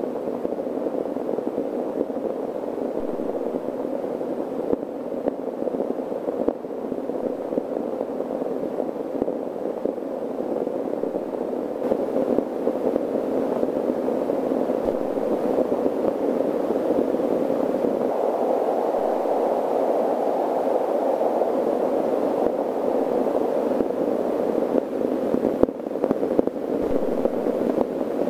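A steady, muffled rushing drone of noise with no clear pitch, growing a little louder about twelve seconds in and brighter around eighteen seconds.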